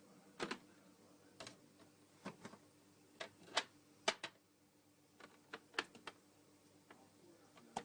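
A dozen or so sharp, irregular clicks and knocks of kitchen utensils, spaced unevenly with the loudest a little past the middle.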